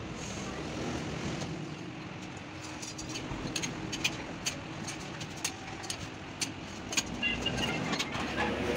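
Sharp, irregular metallic clinks of a steel bar and tools against the crankshaft and main bearing caps of a truck engine block. They start about a third of the way in and come roughly once or twice a second, over a steady background rumble.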